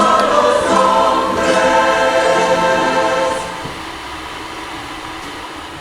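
Choir of voices singing a long held chord, which fades down after about three and a half seconds and carries on quietly.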